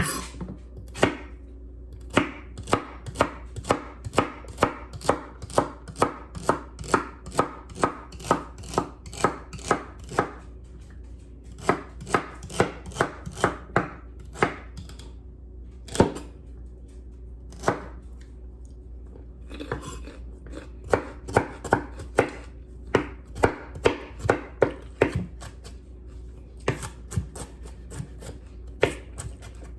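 Kitchen knife chopping a stalk of celery into small pieces on a cutting board: runs of crisp strikes about two a second, broken by a few short pauses.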